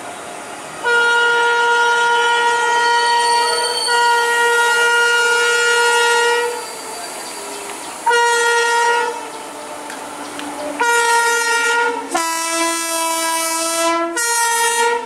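Air horn of an Indian Railways electric locomotive sounding as it runs into the station: one long blast of about six seconds, then a string of shorter blasts, one of them lower in pitch, over the rumble of the train.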